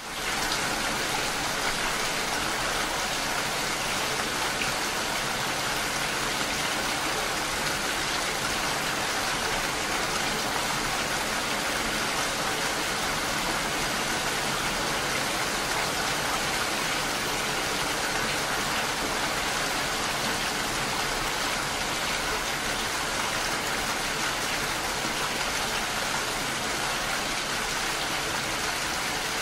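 Steady rain falling, an even hiss of rainfall that sets in abruptly at the start and holds constant throughout.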